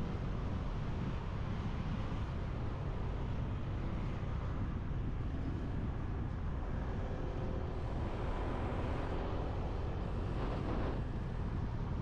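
Motorbike riding in traffic: a steady low rumble of engine and road, with wind rushing over the action camera's microphone. A faint engine drone rises out of it about seven to nine seconds in, and a short hiss comes about ten and a half seconds in.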